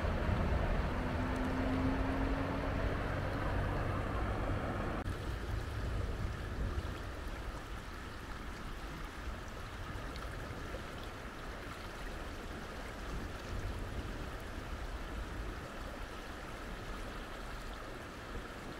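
Steady outdoor rushing noise with a deep rumble for about the first five seconds, then an abrupt change to a quieter, even rush.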